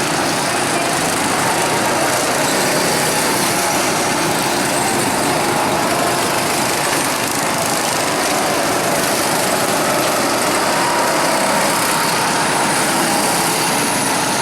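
Small lawnmower-type gasoline engines of mini race cars running, a steady engine drone.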